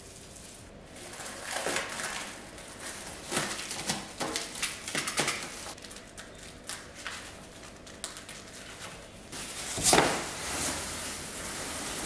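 Plastic stretch wrap crinkling and rustling in irregular bursts as it is sliced with a box cutter and peeled off a glass aquarium, loudest about ten seconds in as a sheet is pulled away.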